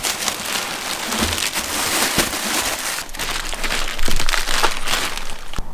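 Packing material crinkling and crackling as it is handled and pulled off a new motorcycle seat, a dense run of crisp rustles that stops abruptly at the end.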